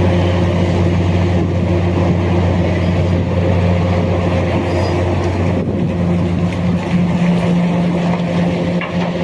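Large diesel engine of heavy mining equipment running steadily under power: a loud, even, deep drone with a constant hum.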